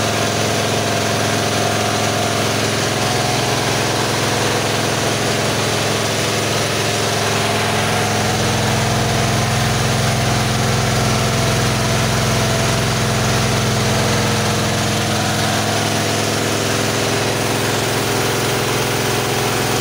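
KD 600 mini rice milling machine running steadily under its engine: a constant engine hum with a broad hiss over it, as milled rice pours out of the chute.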